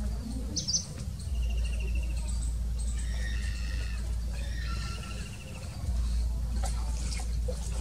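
Small birds calling, with short rapid trills and chirps, over a steady low rumble that drops out briefly twice.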